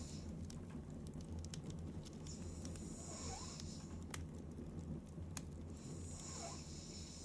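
A sleeping woman breathing heavily, two long airy breaths about three and a half seconds apart, with scattered small clicks over a low steady hum.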